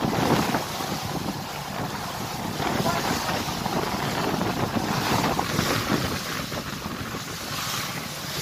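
Wind gusting on the microphone on the deck of a moving boat, over the rush of the water below.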